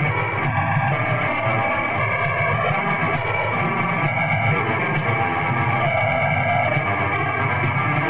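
Raw lo-fi black metal recording: distorted electric guitar and distorted bass playing over drums in a dense, unbroken wall of sound, dull in the highs.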